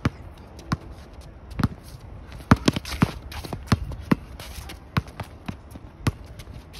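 A basketball dribbled on an outdoor hard court: about ten sharp bounces at an uneven pace, coming quicker in the middle, with sneakers shuffling and scuffing as the players move.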